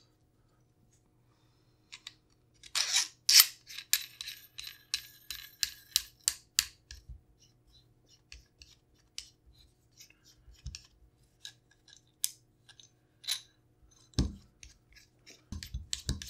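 Small stainless-steel shotgun parts (operating rod and guide) clicking and scraping as they are fitted by hand over the gas tube under the barrel. After about two seconds comes a run of sharp metal clicks and a ringing metallic slide, then scattered lighter clicks.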